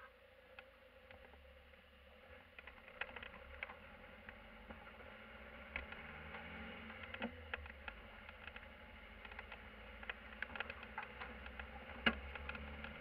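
Van engine running, heard quietly from inside the cab as the van pulls away, its drone slowly getting louder, with frequent small clicks and rattles from the cab interior.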